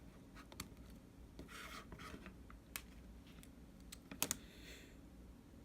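Faint small clicks and light rustling from handling an iPhone and its small parts, with a sharper double click a little after four seconds.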